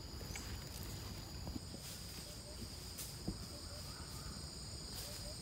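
Insects such as crickets chirring steadily at two high pitches, with a few faint ticks and rustles.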